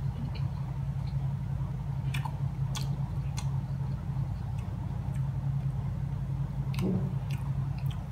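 A man chewing a mouthful of tender lamb shank and mandi rice, with a few short sharp clicks, over a steady low hum.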